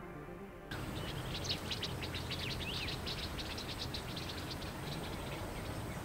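Soft background music dies away, and about a second in there is a cut to outdoor ambience: many small birds chirping in quick, overlapping calls, some of them short falling whistles, over a faint steady hum.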